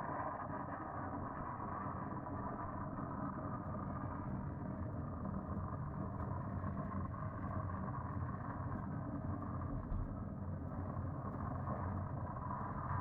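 A loud, steady droning hum that does not break, swelling slightly near the end. It is one of the unexplained 'strange sounds' heard through closed windows and seeming to come from every direction; the uploader rules out an aircraft and does not know its source.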